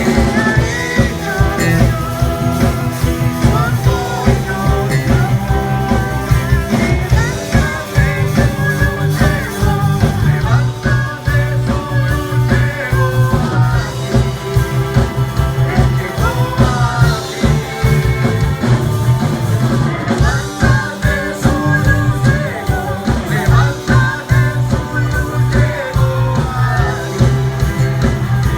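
A singer with a live band: an amplified voice singing over bass, guitar and drums, loud and continuous.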